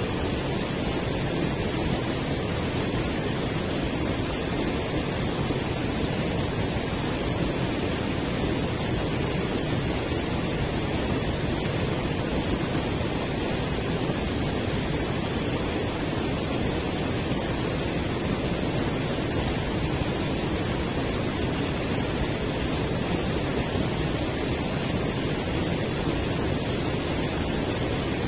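River water spilling over a low concrete weir, rushing steadily and evenly.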